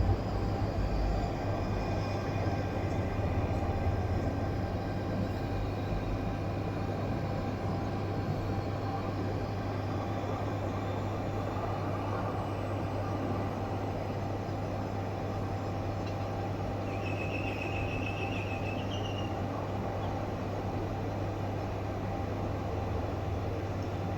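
Steady low mechanical hum and rumble, like a vehicle or machine running, with a brief high-pitched sound about 17 seconds in.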